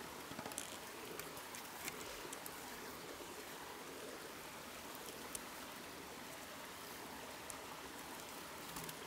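Stream water running steadily, with a few faint clicks.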